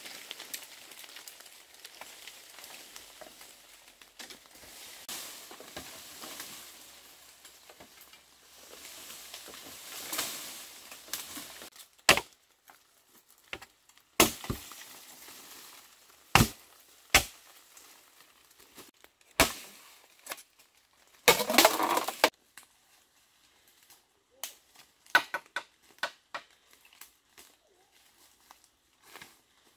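Bamboo being worked by hand: rustling and crackling for the first several seconds, then sharp chopping blows about every two seconds, a short burst of cracking and splitting a little past two thirds of the way through, and a few lighter knocks near the end.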